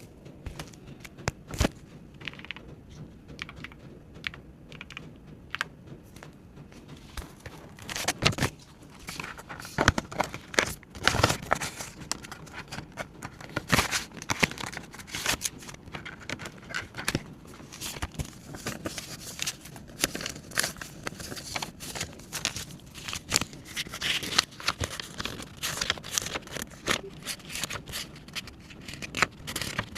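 Banknotes and paper being handled close up: crinkling and rustling with many small sharp taps and clicks. Sparse at first, then busy and almost continuous from about eight seconds in.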